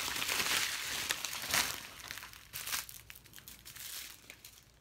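Plastic bags of diamond painting drills crinkling as they are handled, loudest in the first couple of seconds and dying away toward the end.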